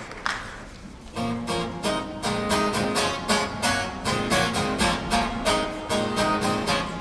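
Acoustic guitar strumming quick, even strokes, about four a second, starting about a second in as the last applause dies away.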